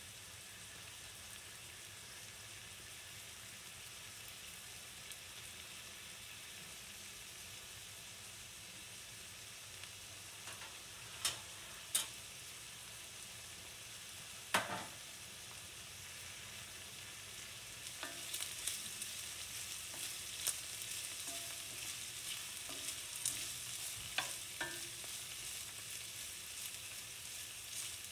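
Sliced onions frying in olive oil in an enamelled pan: a steady soft sizzle, with a few sharp pops about halfway through. The sizzling then grows louder and crackles with many small pops, and a wooden spoon stirs the onions near the end.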